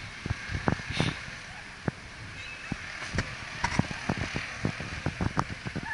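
Outdoor street ambience: a steady wash of distant traffic, broken by many irregular soft knocks and bumps of a handheld camera being carried and turned.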